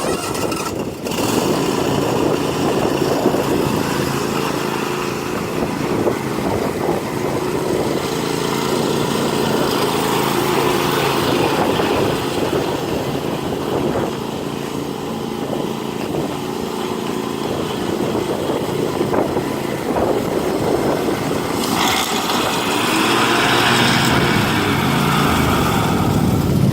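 John Deere LX280 riding lawn mower's engine running steadily. A brighter hissing layer joins it about 22 seconds in and runs alongside the engine.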